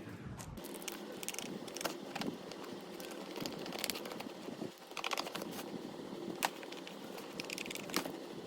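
Packaging being handled and opened: crinkling and rustling with scattered clicks, over a steady background hum.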